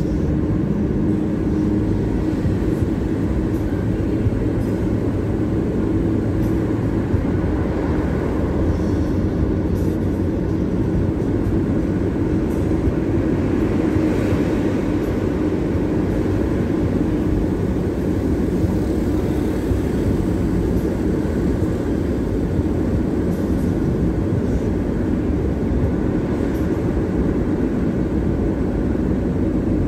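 Steady low rumble of a car driving through a long road tunnel, heard from inside the cabin: road and engine noise.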